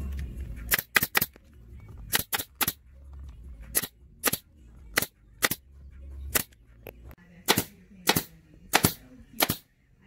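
Surebonder staple gun firing staples through gator-skin vinyl into a seat base: sharp shots, about seventeen, fired in quick clusters of two to four with short pauses between. A low rumble runs under the first seven seconds or so.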